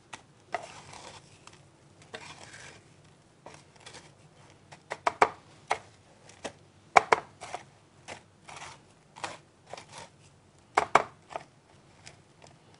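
Kitchen handling sounds as steak pieces are dipped in egg and pressed into breadcrumbs: soft rustling of crumbs with scattered clinks and taps of dishes and utensils, the sharpest a few seconds apart near the middle and end.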